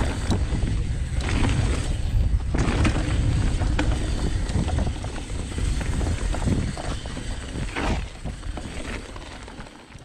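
Wind buffeting the microphone and knobby tyres rolling over a dirt trail as a Transition Sentinel mountain bike is ridden downhill, with scattered clicks and rattles from the bike. The noise dies down near the end as the bike slows.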